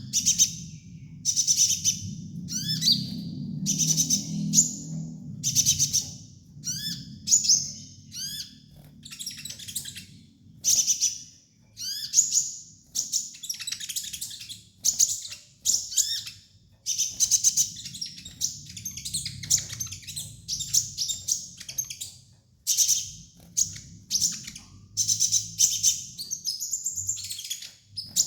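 Kolibri ninja sunbird singing: quick, high-pitched twittering chirp phrases, repeated about once a second, over a faint low hum.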